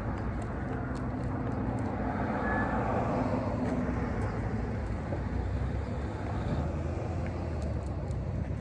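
Road traffic: a steady low engine rumble that swells as a vehicle goes by between about two and four seconds in.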